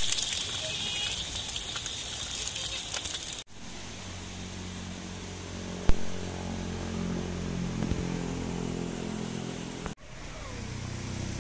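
Eggs sizzling as they fry in oil in a wok, a steady hiss that cuts off abruptly about three and a half seconds in. After that, a quieter low steady hum with one sharp click in the middle.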